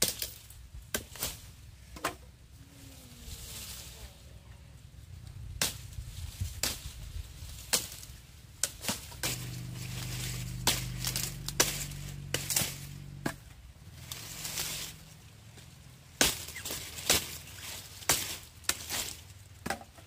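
A blade chopping sugarcane stalks: a run of sharp, irregular knocks, a dozen or more, with short pauses between. A low steady hum comes in for a few seconds in the middle.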